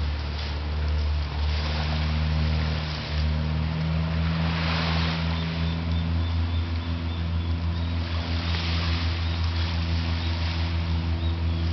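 An engine running steadily, a low even drone, with a hiss of noise above it.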